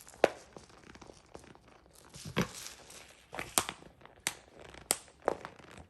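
A puppy chewing a Kong Pig toy, its crunchy textured skin giving off irregular crinkling, crunching crackles with each bite.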